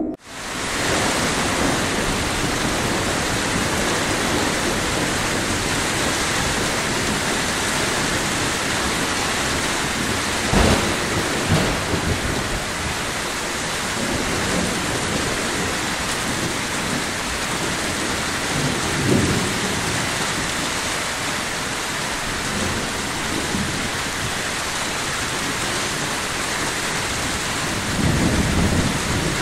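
Heavy rain pouring steadily in a thunderstorm, with a sharp crack of thunder about ten seconds in and low rumbles of thunder about two-thirds of the way through and again near the end.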